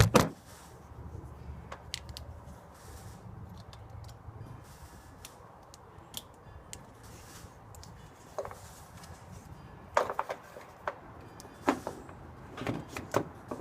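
Irregular clicks and light knocks of an LED third brake light and its plug-in connector being handled and fitted, with a cluster of sharper knocks near the end.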